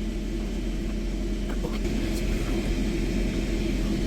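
Steady low hum and drone inside a Boeing 787's cabin, the kind made by the aircraft's air-conditioning and ventilation, with a few faint light clicks about halfway through.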